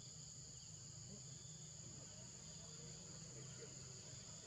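Faint, steady, high-pitched drone of an insect chorus in forest.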